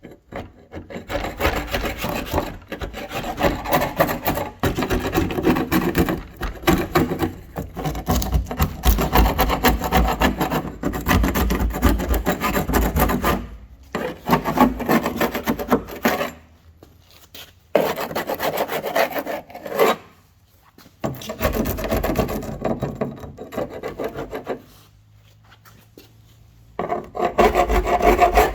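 Hardened car body filler being rubbed down by hand with an abrasive, in runs of quick back-and-forth rasping strokes. The runs are broken by brief pauses, with a longer pause near the end before the strokes start again.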